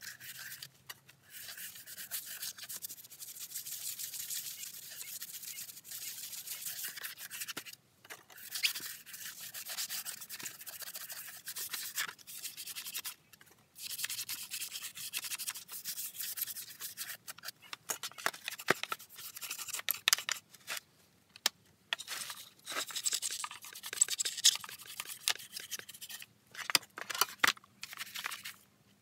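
Stiff-bristled brush scrubbing caked dirt and grime off the plastic housing of a Stihl MS170C chainsaw, in runs of quick strokes broken by short pauses.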